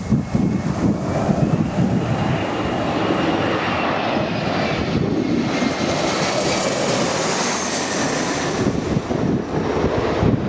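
Airliner passing low overhead on landing approach: a steady engine roar with a whine that slides slightly in pitch, brightest about seven seconds in. Gusty wind buffets the microphone.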